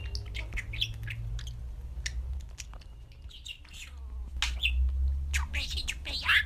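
Budgerigar chirping and chattering in quick, short calls, busier in the second half, over a steady low hum.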